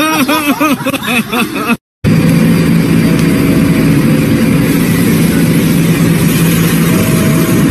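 Steady loud hum and rumble inside a subway car, with two brief faint higher tones. At the start, a short run of quick, repeated rising-and-falling voice sounds breaks off suddenly as the scene changes.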